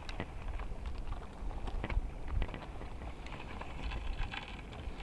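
Wind buffeting the microphone as a low rumble, with scattered small clicks and taps.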